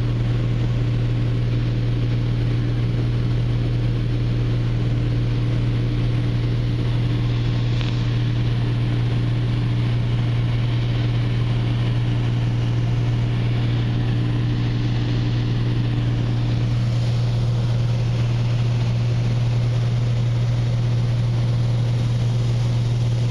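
Single-engine light airplane's piston engine and propeller running steadily in flight, heard inside the cabin as a loud, even low hum; a faint higher tone in it drops out about two-thirds of the way through.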